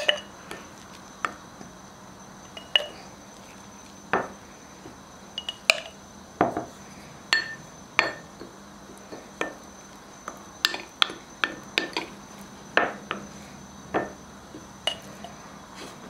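Wooden spoon knocking against a ceramic bowl and a glass jar while spooning crushed garlic into the jar: irregular taps and clinks, sometimes several a second, sometimes a second or two apart.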